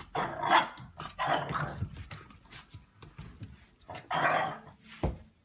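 A dog barking in a few separate, drawn-out calls, the loudest near the start and about four seconds in, with a short sharp one near the end.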